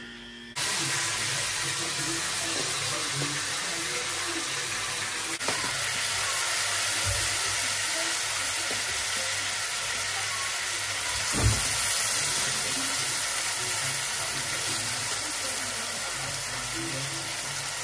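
Freshly boiled thenthuk noodles sizzling steadily in a pan of fried potatoes and onions as they are stir-fried with a wooden spatula, with a few knocks along the way.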